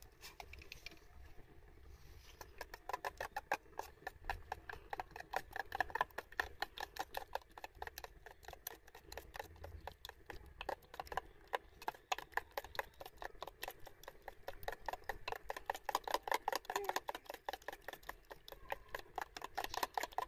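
Metal spoon beating thick batter in a steel-lined bowl: a fast, continuous run of clicks and scrapes as the spoon knocks the bowl's sides, starting about two seconds in.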